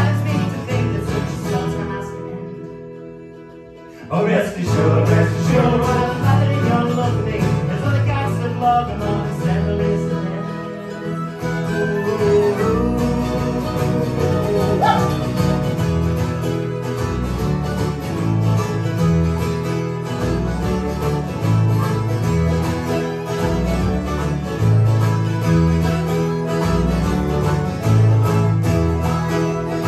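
Live folk band playing a song with acoustic guitar, harmonica and fiddle, and a singer. About two seconds in the music thins out to a brief quiet break, then the full band comes back in sharply.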